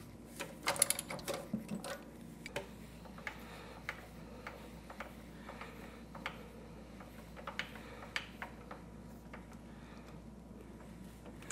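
Headstock of a benchtop round-column milling machine being cranked by hand along its rack on the column, its clamp bolts slackened: scattered light metallic clicks and ticks, with a quick cluster about a second in.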